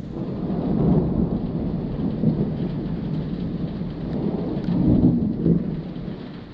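Thunder rumbling from a nearby thunderstorm, swelling about a second in and again around five seconds in, over steady heavy rain.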